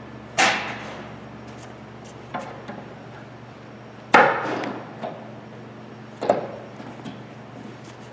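Sharp knocks and clanks from handling pipe and fittings during assembly: three loud knocks with a few softer ones between, each ringing briefly.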